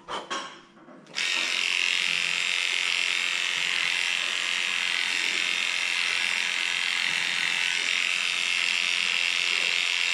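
Electric dog-grooming clippers starting abruptly about a second in, then running steadily with an even buzz while shaving a pug's coat.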